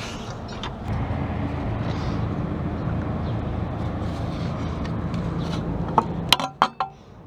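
A steady low engine rumble with a faint hum, then several sharp clicks or clanks near the end as it drops away.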